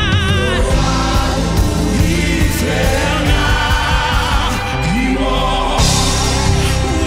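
Gospel worship team singing in harmony with a live band of electric bass and drums, the voices held with vibrato near the start.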